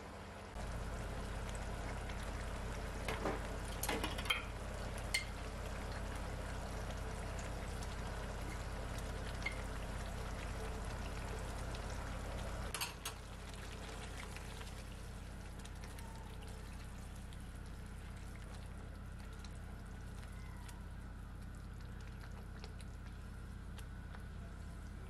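Tomato sauce simmering and bubbling in a nonstick frying pan, a steady soft bubbling, with a few light clicks between about three and five seconds in.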